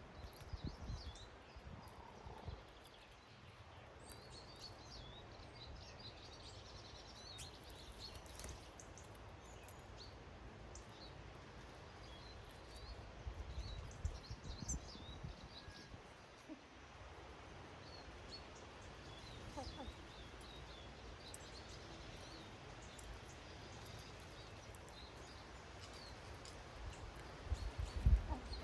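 Garden ambience: small songbirds give short, faint chirps and calls scattered throughout, over a low rumbling background noise that rises in short bursts near the start, about halfway through and near the end.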